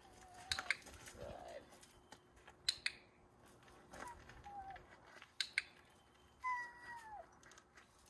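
Dog whining softly in a few short, high whimpers, the longest one falling in pitch near the end, with several sharp clicks, some in quick pairs.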